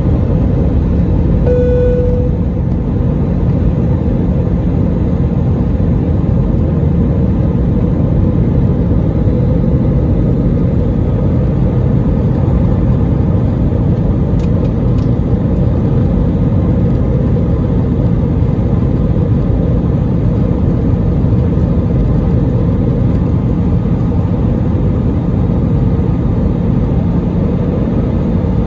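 Steady, loud rumble of an Airbus A320 airliner during its landing, with no change in pitch or level throughout. A short single tone sounds about two seconds in.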